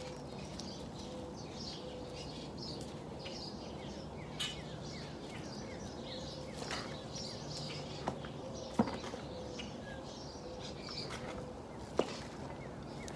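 Small birds chirping and twittering over a steady low hum, with a few sharp knocks, the loudest about three quarters of the way through.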